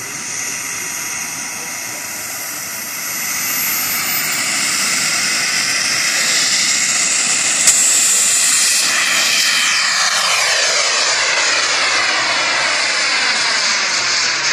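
MW44 micro jet turbine of an Opus V-Jet radio-controlled model jet whining at take-off power as the model rolls down the runway and climbs away. Its pitch rises and it grows louder a few seconds in. Once it is airborne the whine breaks into shifting, sweeping tones, with one sharp click partway through.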